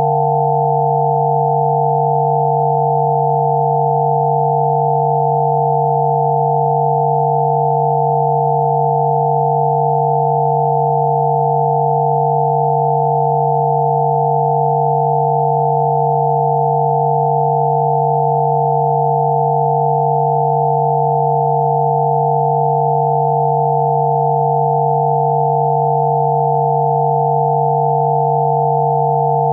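Synthesized sine-wave 'healing frequency' tones held steady and unchanging: a low tone with several higher tones sounding together above it.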